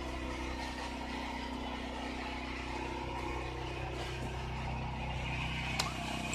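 A motor running with a steady mechanical hum, and a single sharp click near the end.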